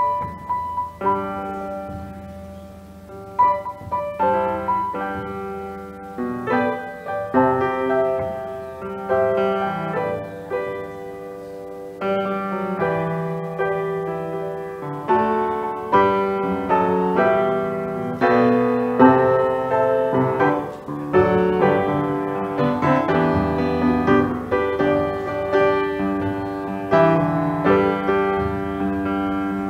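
Piano playing a slow instrumental piece, single notes and chords struck and left to ring out.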